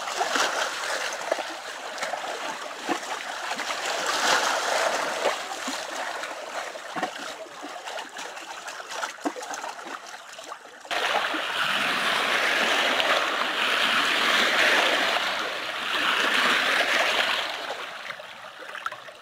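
Small waves splashing and lapping at the water's edge, a rough wash of water full of little splashes. About eleven seconds in it turns abruptly louder and steadier, a continuous rush of water that eases off near the end.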